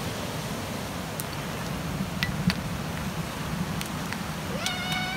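Ocean surf washing over a rocky cobble beach, a steady rush, with a few sharp clicks of stones knocking together. Near the end a short high-pitched call rises and then holds.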